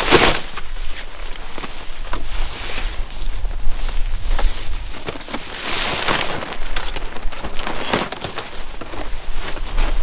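Camouflage fabric of a Nitehawk pop-up hide rustling in several loud bursts as it is shaken out and springs open into shape. Wind buffets the microphone throughout as a low rumble.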